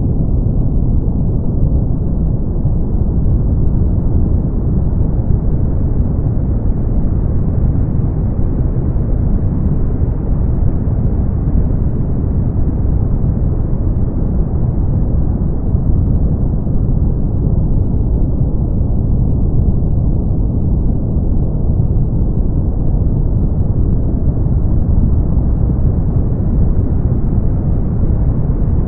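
Brown noise: a steady, deep rushing hiss weighted heavily toward the low end, growing slightly brighter and duller again over many seconds.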